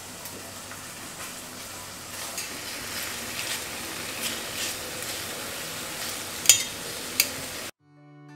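Pork belly slices sizzling as they fry in an enamelled cast-iron pot, with metal tongs clicking against the pot and two sharp clanks near the end. The sizzling cuts off suddenly just before the end, and acoustic guitar music begins.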